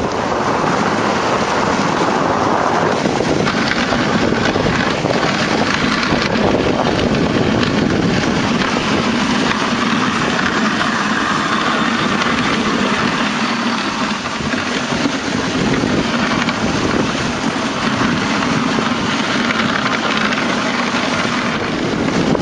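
Steady rushing noise of a moving dog sled: wind buffeting the microphone over the hiss of the sled runners on snow.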